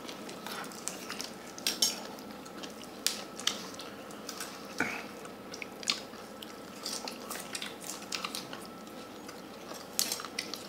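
Metal spoon scooping rice in a stainless steel bowl, with scattered clinks and scrapes of spoon on bowl.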